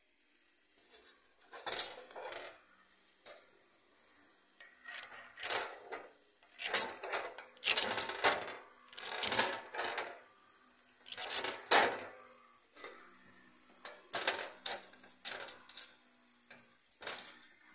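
A hard object scraping and clicking against a stone in a string of short, irregular bursts.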